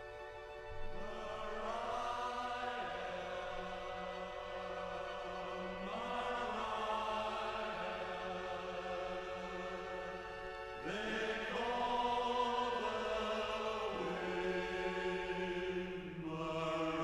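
Background music: a choir holding long, drawn-out chords over an orchestra, sliding to a new chord about every five seconds.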